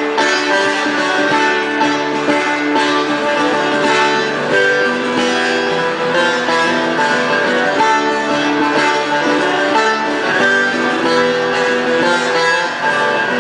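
Live instrumental passage of a long-necked plucked lute and an acoustic guitar playing together, with many quick plucked notes and no singing.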